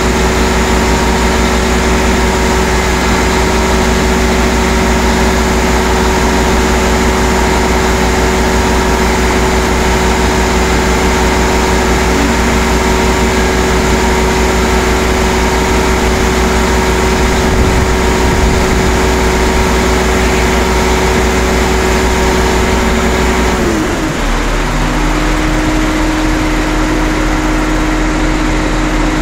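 Heavy diesel engine running loud and steady at raised speed, dropping to a lower speed about 24 seconds in.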